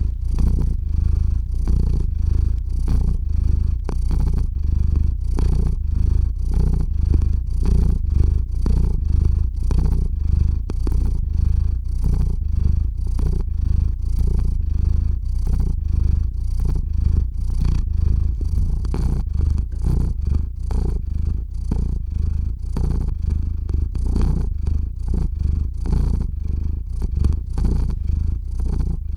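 Domestic cat purring close against the microphone: a deep, loud, continuous purr that pulses in a regular rhythm.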